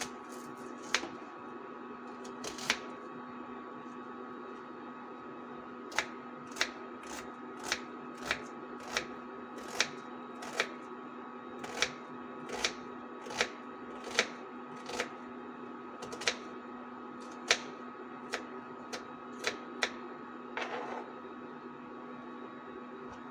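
Kitchen knife chopping a red onion on a plastic cutting board: sharp, irregular knocks of the blade on the board, about one or two a second, over a steady electrical hum. A brief scrape near the end.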